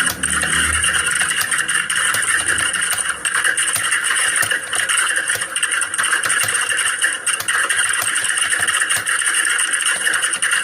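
Computer keyboards being typed on fast and without pause: a dense, irregular clatter of key clicks, as in an exam-hall typing test. A low rumble sits under the first few seconds.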